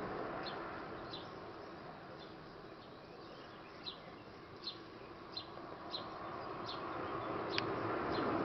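A small bird chirping over and over, a short high note about every two-thirds of a second, over a steady hiss that dips and then swells back up near the end.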